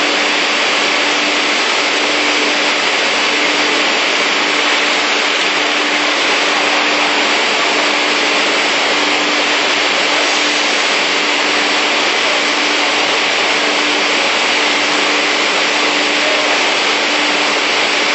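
Panel beam saw running: a steady rushing noise with a constant low hum underneath, unchanging throughout.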